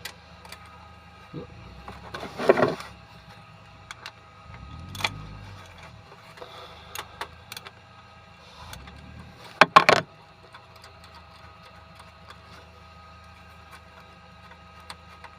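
Hand tools working on the engine's cylinder head bolts: scattered metal clicks and clinks, with two louder clattering bursts about two and a half and ten seconds in.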